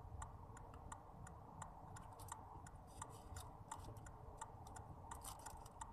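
Near silence inside a car cabin: a faint, even ticking a few times a second over a low, steady hum.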